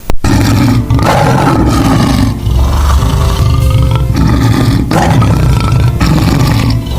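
Lion roaring: a series of loud roars with short breaks between them.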